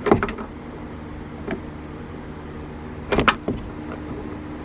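Sharp plastic and metal clicks and knocks as a screwdriver and the mirror's wiring plug are worked against the connector inside a car door: a quick cluster at the start, a faint single click about a second and a half in, and another cluster a little after three seconds, over a steady low hum.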